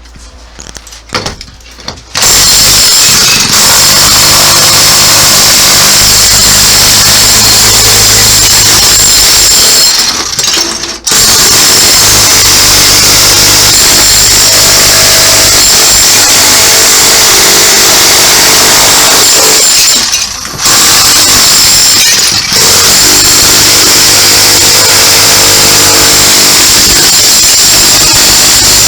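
Electric hammer drill chiselling bathroom tiles off a wall, very loud, running in long continuous stretches. It starts about two seconds in and stops briefly twice, about ten and twenty seconds in.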